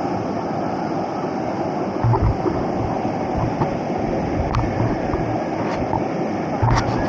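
Steady rushing of river white-water rapids. Two low thumps, about two seconds in and again near the end, are the loudest moments.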